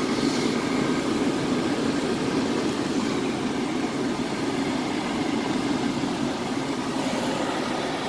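RV propane furnace's blower running steadily on a call for heat from jumpered thermostat wires, a continuous fan hum with no ignition, as the board shows a fault.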